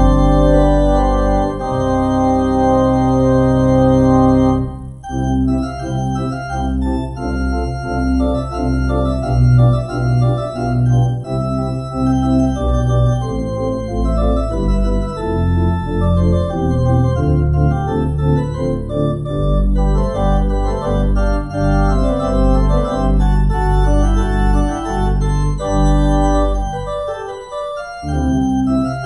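Church organ playing the postlude after the dismissal. A full held chord breaks off about five seconds in, followed by a busier passage of moving notes, with deep bass notes coming in past the middle.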